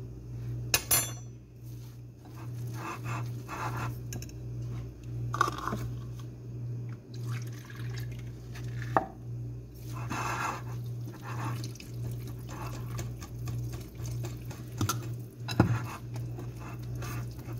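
Batter being made in a glass bowl: liquid poured in, and a wire whisk and cup clinking against the glass several times, over a steady low hum.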